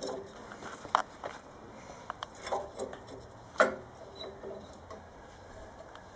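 Scattered light knocks and clicks of a home-built steel cut-off saw's frame and arm being handled, the sharpest about one second in and again about three and a half seconds in; the saw's motor is not running.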